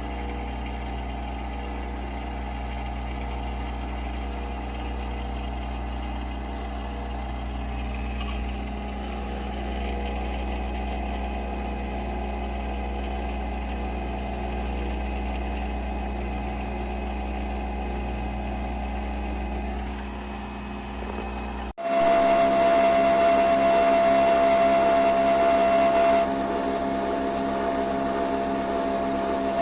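Nespresso Vertuo Next coffee machine running with a steady hum. About 22 seconds in it switches abruptly to a louder, high whine on one steady tone, which starts to drop in pitch near the end.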